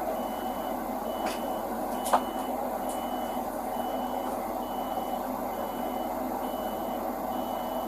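A vehicle's reversing alarm beeping steadily, about one high beep a second, over a steady engine hum. A single sharp click sounds about two seconds in.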